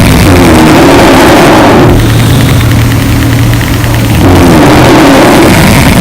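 Loud snoring: rattling snores at the start and again about four seconds in, with a low steady drone between them.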